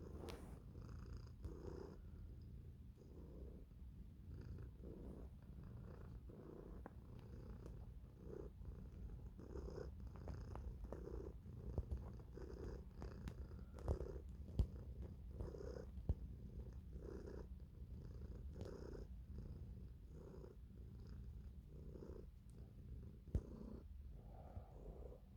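Domestic cat purring steadily, the purr swelling and fading with each breath in a regular rhythm, with a few faint clicks.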